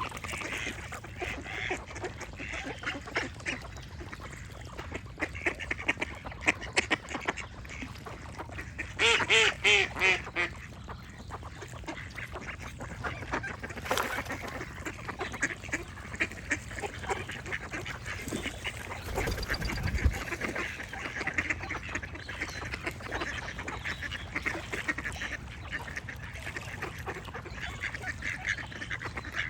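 Ducks quacking over a background of songbirds singing, with a loud run of quacks about nine seconds in. A brief low rumble comes about twenty seconds in.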